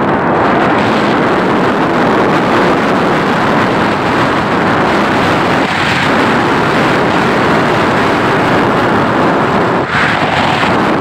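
Wind rushing over the microphone of a moving vehicle, with road noise beneath: a loud, steady rushing that barely changes.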